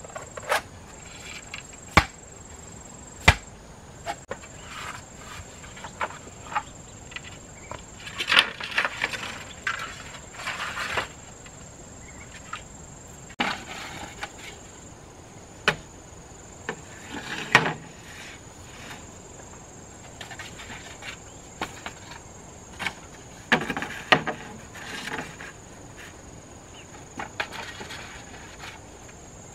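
Sharp knocks of a machete striking and splitting a green bamboo pole in the first few seconds, then scattered rustling, scraping and knocking of bamboo poles being handled and fitted. A steady high insect buzz runs underneath.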